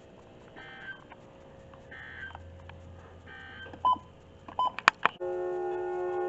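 Emergency Alert System SAME header data bursts: three short, buzzy digital squawks about a second apart, fairly faint. A few short beeps follow, and a loud steady sound of several held tones starts about five seconds in.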